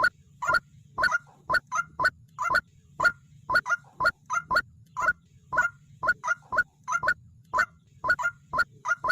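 Waterhen calling: a fast, uneven string of short, harsh notes, about three a second, some coming in quick pairs.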